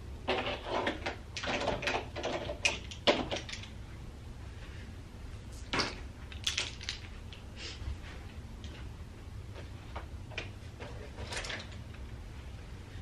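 Belongings being handled and packed into a suitcase: a busy spell of rustling and knocks for the first few seconds, then scattered clicks and knocks, over a low steady hum.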